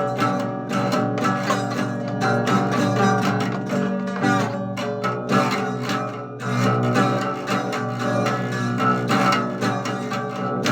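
Guitar music: plucked and strummed notes over held chords, with no voice heard.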